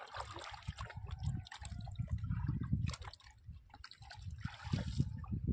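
Water sloshing and dripping around a small boat, with scattered small knocks and a low rumble underneath.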